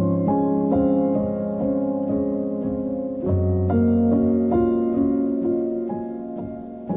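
Background music: a gentle piano piece of sustained, overlapping notes, with a deep bass note coming in about three seconds in.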